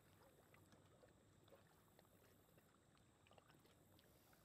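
Near silence: faint outdoor background with a few tiny, scattered ticks.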